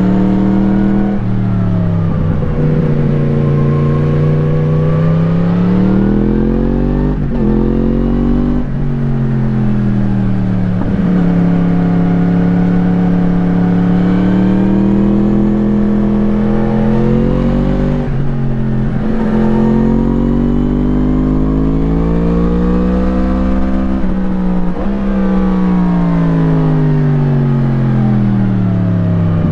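2017 Yamaha MT-10's crossplane inline-four through an Akrapovič slip-on exhaust, heard onboard, accelerating and slowing in turn. Its pitch climbs and falls repeatedly, with several abrupt drops.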